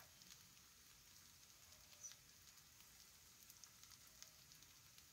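Near silence, with faint scattered crackles from a pan of fish-head rice still cooking on the gas flame.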